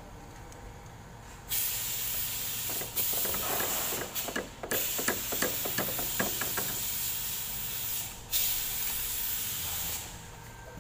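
Pressurised hissing spray cleaning a diesel injector nozzle mounted on a nozzle tester. It comes in several long bursts with short breaks, and a quick run of sharp ticks sounds in the middle.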